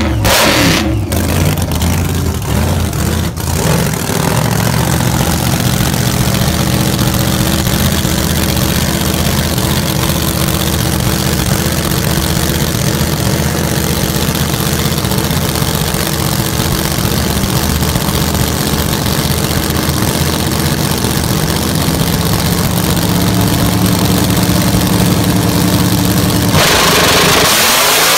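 Radial-tire drag racing car's engine idling steadily at the line, then launching about a second and a half before the end, getting louder as its pitch climbs sharply while it accelerates away.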